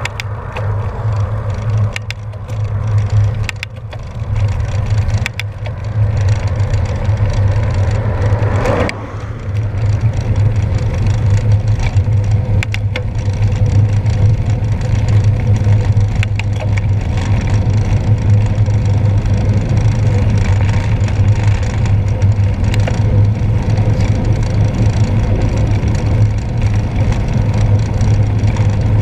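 Wind buffeting the microphone of a handlebar-mounted camera on a moving bicycle: a loud, steady rumble over tyre and road noise, broken by scattered sharp clicks and rattles from bumps in the road.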